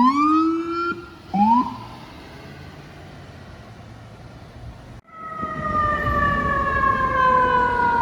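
Fire truck sirens: two short rising whoops in the first second and a half, then steady street noise, and from about five seconds in a siren wail that falls slowly in pitch.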